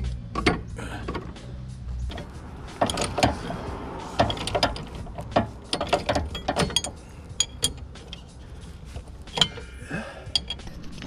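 Hand ratchet clicking in short strokes, with metallic clinks of tools and hardware, as the nut is run down onto a C4 Corvette's leaf-spring lowering bolt. A low hum stops about two seconds in.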